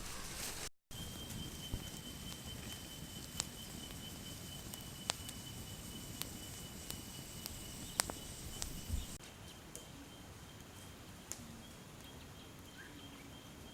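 Faint bush ambience: a steady high-pitched insect trill, with sparse sharp clicks every second or two over a low hiss.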